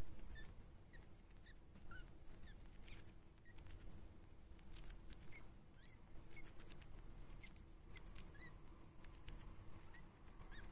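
Djungarian hamster eating a piece of green vegetable: faint, crisp chewing clicks, with many short, high squeaks scattered throughout.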